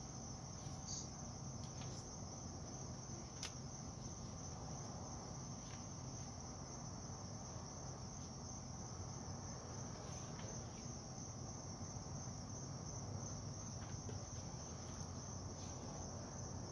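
Crickets chirping in a steady, continuous high trill over a faint low background rumble, with a few faint clicks.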